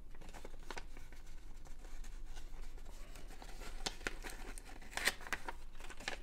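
A folded sheet of printer paper being unfolded and handled: crisp paper rustling and crackling, with a louder crinkle about five seconds in.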